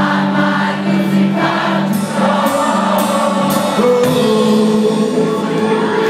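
Live indie rock band playing loud, with many voices singing together: the audience singing along with the band.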